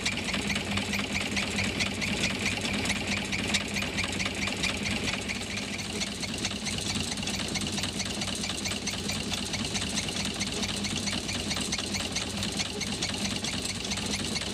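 Small steam launch's single-piston steam engine running steadily, with a fast, even mechanical beat from its crank and valve gear.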